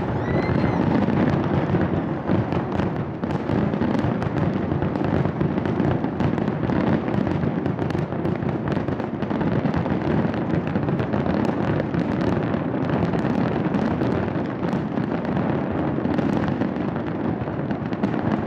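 New Year fireworks display going off in a dense, unbroken barrage of many rapid bangs and crackles at a steady loud level.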